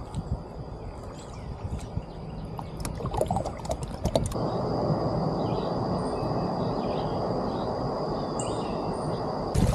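Kayak on the water: a quick cluster of light knocks and clicks on the hull about three to four seconds in. Then a steady rushing noise of wind and water holds for the rest of the time.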